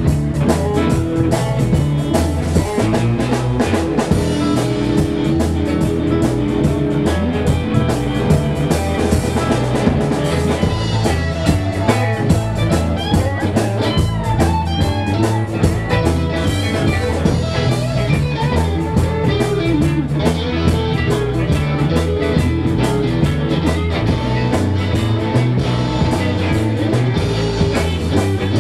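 Live blues-rock band playing an instrumental shuffle blues: electric guitars over bass guitar and drum kit, with a steady beat.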